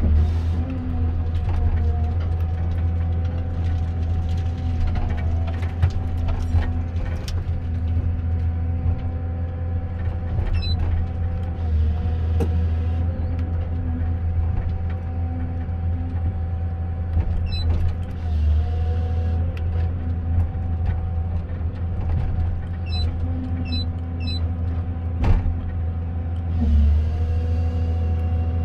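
Komatsu 931.1 forest harvester running under load, its diesel engine humming steadily under a constant whine, while the harvester head works big spruce trees. There are a few sharp knocks and some short high chirps.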